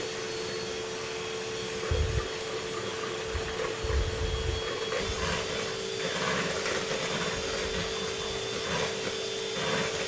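Electric hand mixer running steadily with a constant hum, its beaters whipping egg whites and sugar into meringue in a plastic bowl. A couple of dull knocks come about two and four seconds in.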